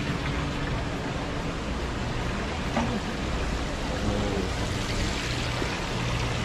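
Steady bubbling and rushing of water from the aerators in live-seafood tanks.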